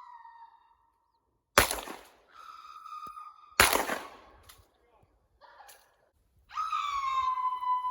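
Two gunshots about two seconds apart. Near the end a long, steady high-pitched tone sets in.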